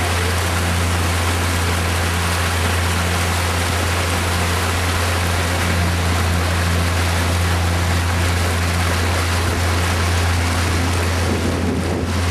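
A boat's motor running with a steady low drone, under a constant hiss of water and wind as the boat moves along.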